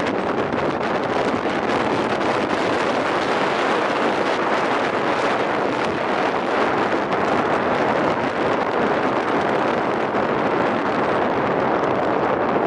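Steady rushing wind noise on the microphone, mixed with road noise from moving along.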